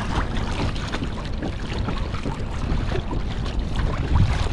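Steady wind noise on the microphone, a low rumble, with water lapping and splashing faintly against the hull of a Hobie Outback kayak.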